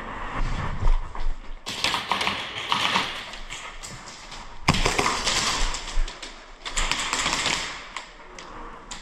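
Airsoft guns firing in rapid bursts, a fast rattle of shots with BBs smacking nearby surfaces: one burst of about a second and a half, then a longer one of about three seconds, with scattered single clicks between.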